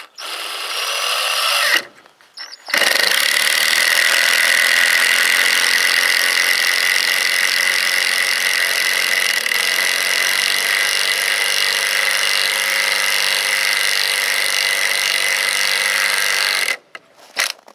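Cordless driver sinking a 4½-inch star-drive wood screw into an old green-treated 4x4 with no pilot hole. A short first burst starts the screw, then a brief stop, then one long steady run of about fourteen seconds under heavy load with a high whine, which cuts off suddenly near the end. The tool is labouring hard enough that it smoked on the drive and came out warm.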